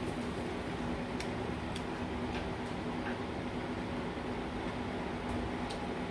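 Steady whirring hum of a fan with a faint hiss, and a few faint scattered ticks.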